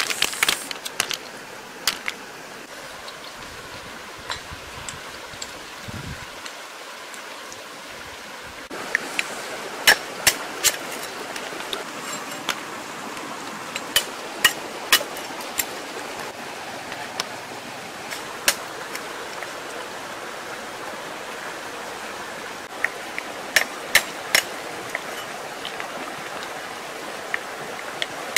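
Stream water running, with sharp irregular knocks from about nine seconds in: a heavy knife chopping the tips off river snail shells on a wooden chopping block.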